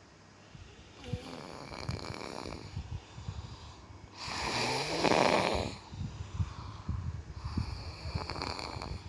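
A person snoring in sleep: three rattling snores about three seconds apart, the middle one the loudest.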